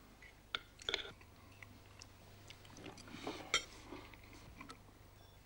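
Soft clinks and scrapes of a knife and fork on a china plate, with a few sharp clicks, then quiet chewing of a mouthful.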